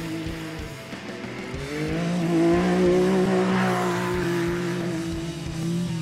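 Off-road race buggy's engine at high revs as it drives past at speed, getting louder to a peak about three seconds in and then fading.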